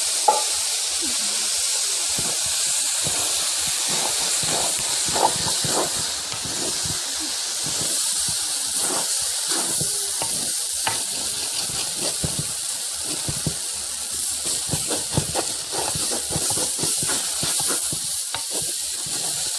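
Pot of frying tomato base sizzling and hissing steadily after meat stock is poured in, with many small crackles and pops.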